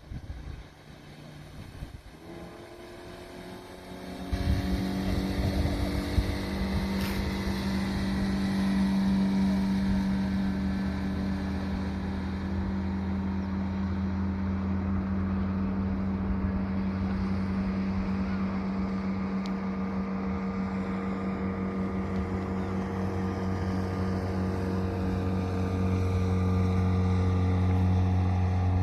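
Yamaha boat's engine revving up about two seconds in, its pitch rising as the boat accelerates. From about four seconds it runs loud and steady at speed, a constant drone.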